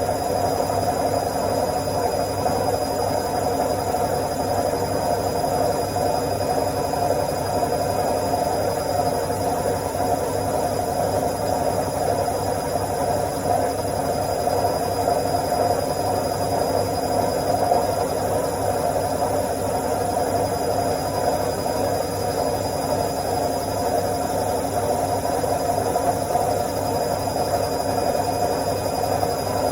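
Washing machine on its spin cycle: the drum spinning with a steady hum and whir, a faint high whine above it.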